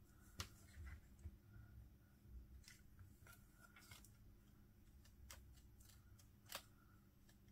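A handful of faint, scattered snips of small craft scissors cutting cardstock.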